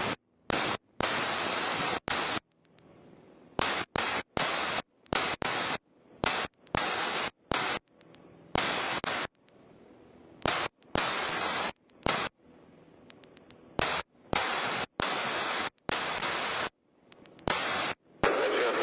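Hiss of static on an aircraft's radio or intercom audio feed, cutting in and out abruptly many times in short blocks, from a fraction of a second to about a second each.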